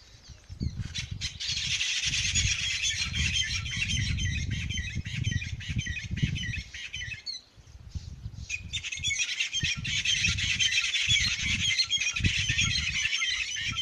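A flock of birds chattering, many rapid overlapping chirps and calls at once, in two long stretches with a short break about seven seconds in. An uneven low rumble runs beneath.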